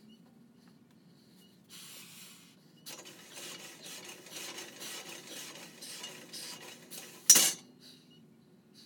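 Barbell and Smith-machine cage scraping and rattling for a few seconds during a bench press set, then one loud metallic clank with a short ring near the end.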